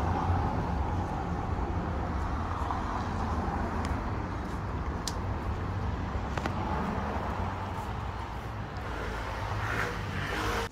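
Steady low rumble with a hiss of background noise, like traffic or a busy street heard through the open shop, with a few faint clicks; it drops away suddenly at the end.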